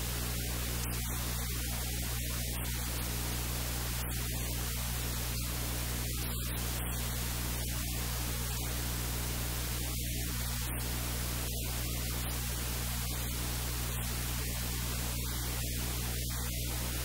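Steady static hiss over a low electrical hum, with no speech or distinct cutting sounds standing out.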